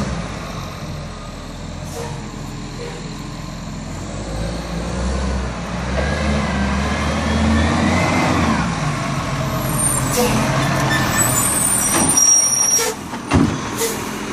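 Diesel engine of a side-loader garbage truck pulling up to a kerbside bin, its pitch rising and falling as it drives in. Several short air-brake hisses and sharp clicks come in the last few seconds.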